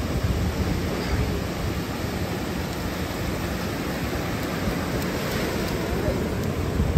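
Gulf surf washing onto the beach: a steady rushing noise with a heavy low rumble.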